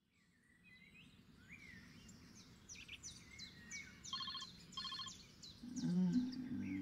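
Faint morning birdsong, many quick high chirps, with two short bursts of rapid electronic alarm beeps about four and five seconds in. Near the end a small dog's yawn with a low, wavering whine is the loudest sound.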